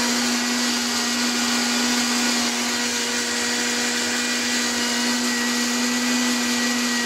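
Grain crusher running steadily, grinding wheat into crushed feed: a loud constant hum over a dense rushing noise.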